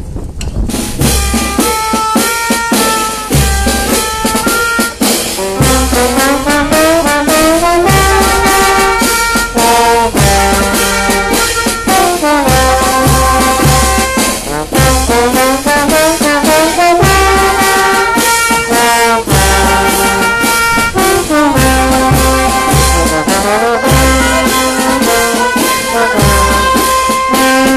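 Brass band playing a tune, trumpets and trombones carrying the melody over a steady low beat.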